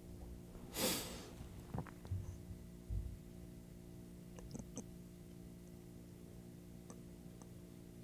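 Quiet room tone with a steady electrical hum. A short, sharp breath comes about a second in, followed by a few soft low thumps and faint clicks as the seated speaker shifts and handles something in front of him.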